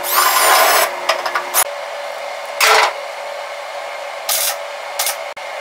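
Cordless drill boring through sheet steel, its motor whine rising for about a second and a half, then three short crackling bursts of MIG tack welding on a car-body sill panel, over a steady hiss.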